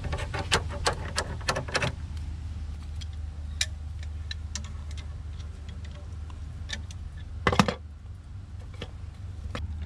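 Small metal clicks and rattles of a grounding clamp and 12-gauge ground wire being fitted by hand onto a grounding rod: a quick run of clicks at the start, scattered single clicks after, and a louder rattle about seven and a half seconds in, over a steady low hum.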